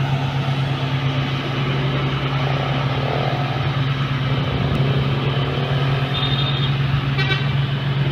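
Heavy road vehicle's engine running steadily, a constant low drone, with a faint rising whine about three seconds in and a brief sharp click near the end.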